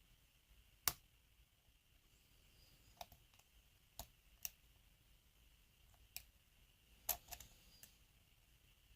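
Scattered small, sharp metallic clicks from a lock pick and tension wrench working the pins inside an Abus 83/45 padlock, the loudest about a second in and a cluster near the end, over near silence.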